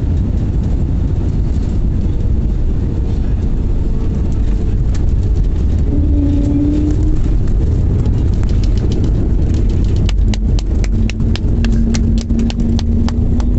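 Airbus A321neo cabin noise during landing: a loud low rumble throughout, with scattered clicks that turn into a fast run of rattling knocks from about ten seconds in.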